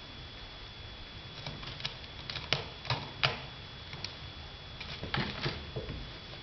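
A cat's claws and paws scrabbling and tapping on a sisal-wrapped cat tree as it climbs: quick scratchy clicks in two bursts, loudest just past the middle.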